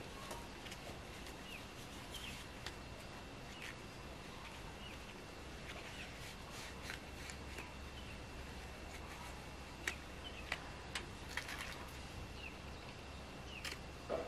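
Faint outdoor ambience: scattered bird chirps, with a few light clicks and taps as tools and the torch hose are handled, the sharpest around two-thirds of the way through.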